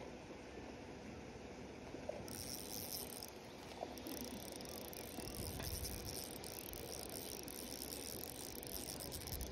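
Small spinning reel being cranked to bring in a hooked trout, with the fish splashing at the water's surface. A fine high hiss with quick ticks sets in about two seconds in.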